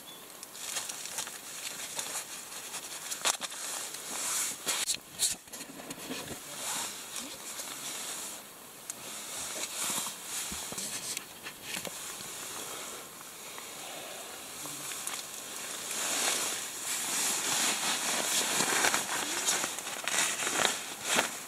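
Rustling and crinkling of camping gear being handled inside a tent: a thin foil insulating sheet and the nylon shell of a sleeping bag, with scattered small clicks. The rustling grows louder near the end.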